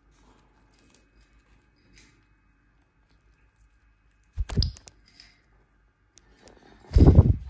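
A lovebird's wings flapping in two short, loud flurries, about four and a half seconds in and again near the end, the second longer; faint small beak clicks between them.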